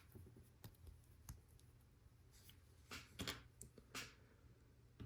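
Faint scattered clicks of hands handling plastic Lego Technic pieces: one about a second in and a small cluster around three seconds in, over near silence.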